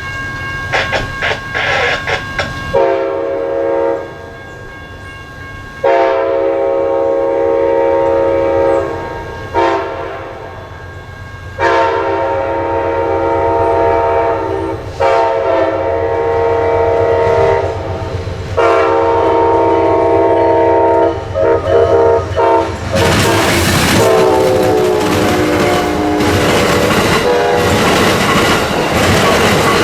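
Amtrak passenger locomotive's multi-chime air horn sounding a series of long blasts for the grade crossing. It is followed near the end by the loud rush and wheel clatter of the train passing close by, with the horn still blowing.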